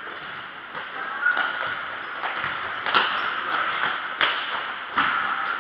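Futsal ball being kicked and passed on an indoor court: several sharp knocks echoing in a large hall, the loudest about three seconds in, over a steady hall hiss.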